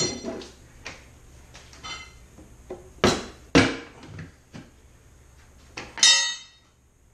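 Tools knocking and clinking against a wheel as a low-profile tire is levered onto its rim by hand: two loud knocks about three seconds in, a few lighter clicks after them, and a short squeak at the start and again about six seconds in.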